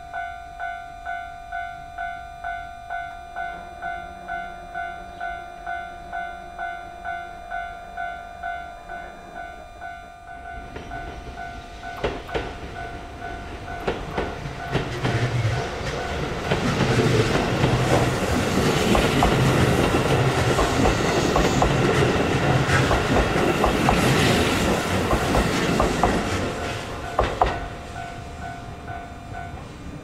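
A Japanese level-crossing alarm rings steadily about twice a second. About a third of the way in, a Keihan 13000-series electric train approaches and passes, its wheels clattering over the rail joints, then fades. The alarm bell cuts off just before the end.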